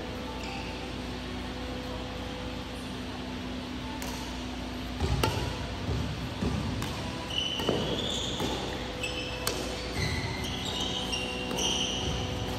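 Badminton rally: racquets hitting the shuttlecock in a run of sharp clicks starting about four seconds in, mixed with short high squeaks of shoes on the court floor. A steady hum runs underneath.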